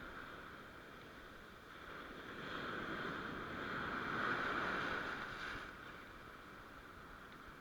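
Ocean surf washing in on the shore, a rushing noise that swells to its loudest a few seconds in and then falls away.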